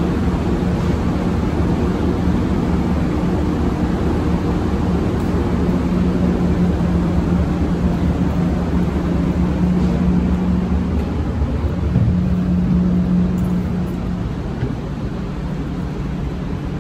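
Passenger train standing at the platform with its machinery running: a steady low hum with droning tones, a little quieter near the end.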